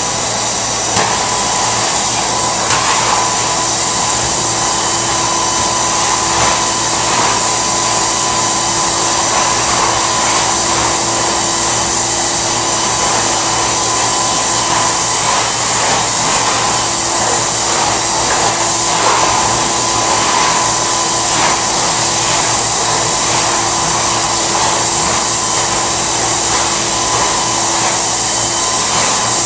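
Drum-type wet/dry vacuum cleaner running steadily, a loud motor whine with hiss, as its hose nozzle is worked over the floor.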